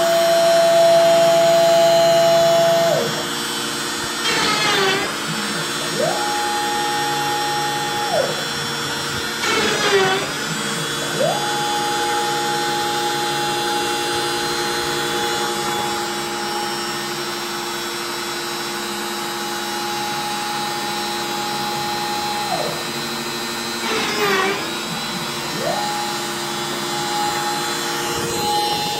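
CNC router running: the trim-router spindle whines steadily while the gantry's stepper motors hum a steady tone during long moves between holes, ramping up and down in pitch as each move starts and stops. Three times the sound briefly warbles and dips as the spinning bit plunges into the MDF spoilboard to drill a hole.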